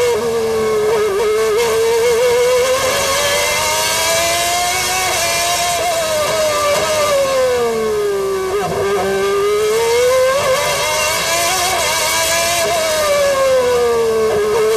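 1992 McLaren-Honda Formula One car's V12 engine at racing speed, heard from onboard: its pitch climbs as it accelerates and falls as it slows for corners, three times over, with a short rough break in the sound about eight and a half seconds in.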